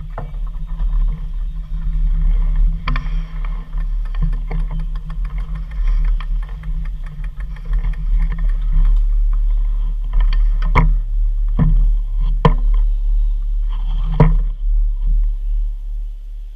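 Steady low rumble and hum with several sharp knocks scattered through it, the loudest about 11, 12.5 and 14 seconds in.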